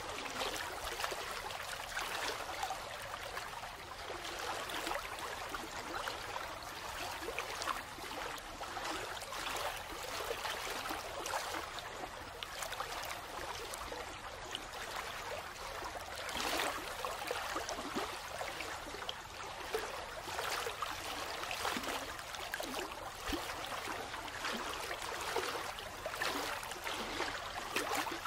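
Steady running-water sound, like a flowing stream, with fine trickling detail and no pauses: the cover track of a subliminal audio.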